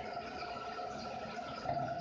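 Apple slices sizzling and bubbling gently in a lidded frying pan on a gas stove: a steady soft hiss, slightly louder for a moment near the end.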